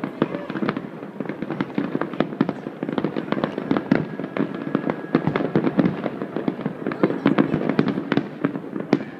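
Fireworks display: a dense, continuous barrage of bangs and crackling pops from many shells bursting at once.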